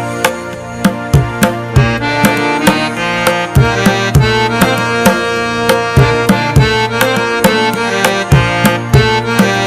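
Background music with sustained melodic notes over a steady hand-drum beat.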